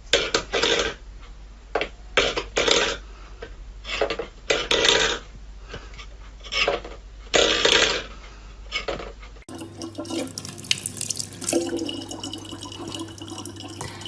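Water splashing in a series of short bursts. After a sudden cut, a tap runs steadily into a sink over a low hum.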